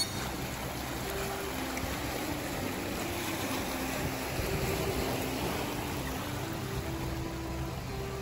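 Small sea waves washing and lapping among shoreline rocks, a steady watery rush. A faint, soft melody of held notes plays underneath.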